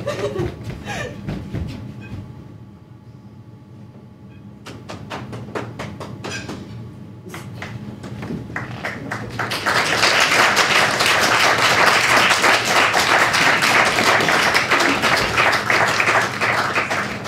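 Audience applause: a few scattered claps and thuds at first, swelling about ten seconds in into full, steady clapping from many people.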